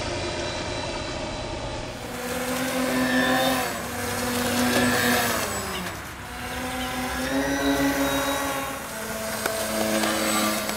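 The twin propeller motors of an IdroJeep RC flying boat running as it taxis fast on the water. Their drone rises and falls in pitch several times as the throttle changes, with the thrust varied between the two motors to steer. The sound changes abruptly about two seconds in.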